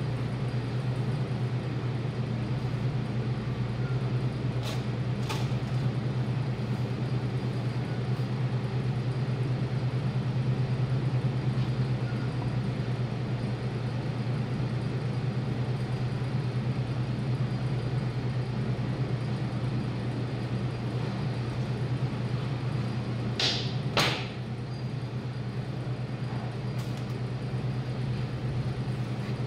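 Steady low machine hum, with a few short clicks about five seconds in and a louder sharp sound about 24 seconds in.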